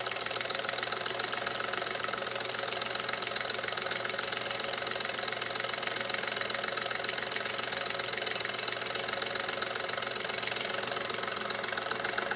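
Singer 221 Featherweight sewing machine's electric motor running steadily, driving a Singer pinking attachment whose toothed wheel cuts a zigzag edge into thin leather. The sound starts at once and cuts off suddenly at the end.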